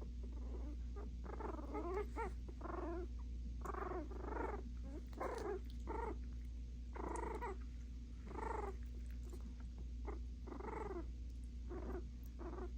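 Puppies barking at each other in short pitched yips, roughly one every second, over a steady low hum.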